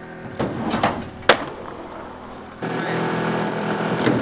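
Skateboard on a metal satellite dish: the wheels scrape and knock, with one sharp, loud clack about a second in. A bit past halfway the sound jumps to a louder, steady rough noise.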